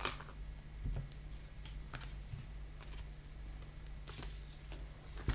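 Scissors cutting a sheet of sticker vinyl: a few separate snips with light paper rustling, and a sharper click near the end.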